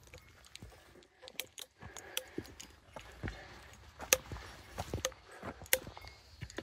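Trekking poles and boots on a rooty, stony forest trail during an uphill hike: irregular sharp clicks and clinks of the pole tips and gear, a few a second, with footsteps, the loudest clicks about four and nearly six seconds in.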